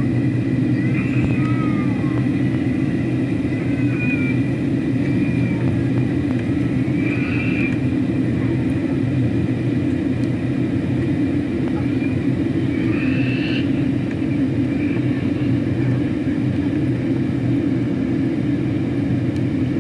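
Steady in-flight cabin noise of a Boeing 737-800: the drone of its CFM56 turbofan engines and the rush of air past the fuselage, heard from inside the cabin, with a thin steady high tone over the low roar.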